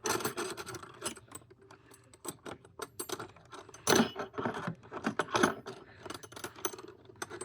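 Metal hand tools clinking and rattling against each other and the drawer as they are handled and set into a tool box drawer: a run of sharp clinks, the loudest about four seconds in.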